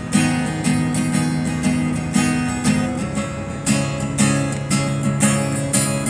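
Acoustic guitar with a capo played fingerstyle: a steady pulse of plucked chords over held bass notes, with a chord change about halfway through.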